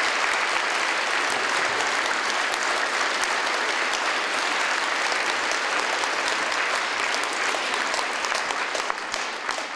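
A large audience clapping steadily, tapering off near the end.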